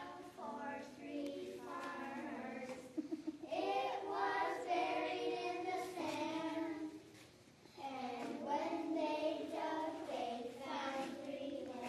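Children singing a song together, with long held notes and a short break about seven seconds in.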